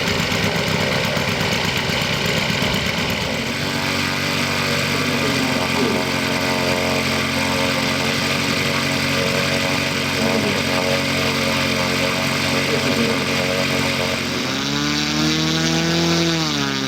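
Engine of a large-scale radio-controlled model aircraft running in flight at a steady pitch. It comes through clearly after a few seconds, and its pitch swings up and then down near the end.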